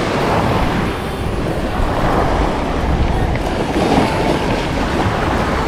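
Steady rush of surf and wind at the shore, with wind buffeting the microphone as a low rumble.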